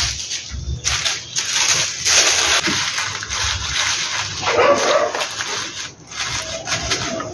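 Thin tissue paper rustling and crinkling as it is cut with scissors and crumpled by hand, with a short thin whine near the end.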